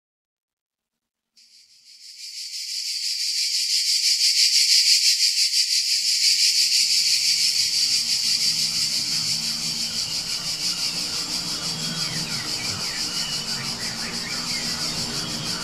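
Insect chorus, a loud, rapidly pulsing high buzz, fading in about a second in. About halfway a low steady hum joins beneath it.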